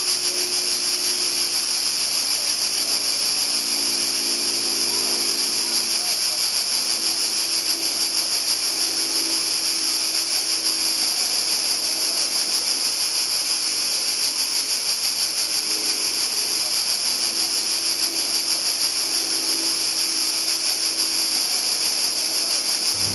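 A steady, shrill, high-pitched hiss with a fast flutter, with faint low tones shifting beneath it.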